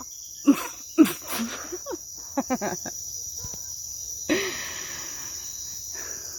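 A person's voice making short imitation bird calls: several in quick succession in the first three seconds and one more about four seconds in. Underneath is a steady, high-pitched chorus of night insects.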